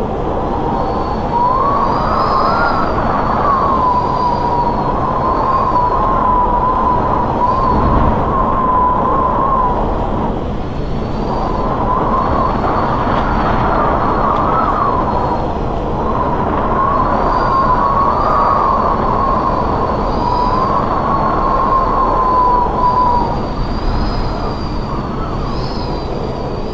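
Strong wind howling in gusts over a steady rushing roar, with a wavering whistle that rises and falls in pitch and dies away between gusts.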